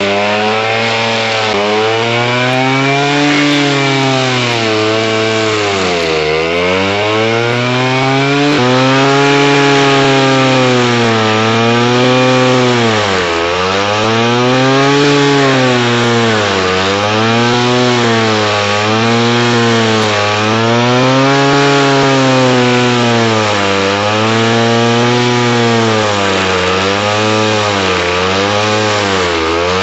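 Alpine Magnum stump grinder's engine running under load while the cutting wheel chews into a stump. The engine's pitch sags and recovers roughly every one and a half seconds, the engine labouring as each sweep bites into the wood, over a steady rasp of wood being ground.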